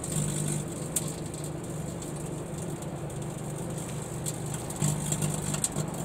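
Microwave oven running with expired medicine pills inside: a steady low hum, with a few sharp clicks at about a second in and again near the end.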